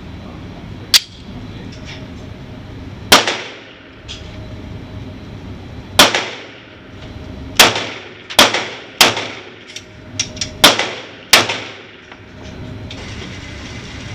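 A string of pistol shots: eight loud, sharp reports at uneven intervals of about one to three seconds, with two fainter cracks close together about ten seconds in.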